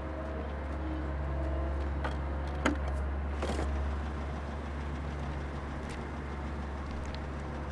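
Car engine idling as a steady low rumble, with a sharp knock about two and a half seconds in and a short rustle a second later.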